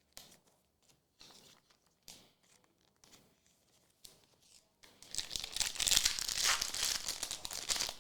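Light handling clicks, then about five seconds in a trading card pack wrapper is torn open and crinkled: a loud, dense crackling rip lasting about three seconds.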